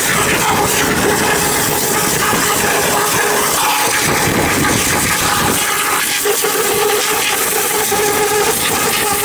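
Pressure washer spraying: a steady loud hiss of the water jet over the hum of the running machine.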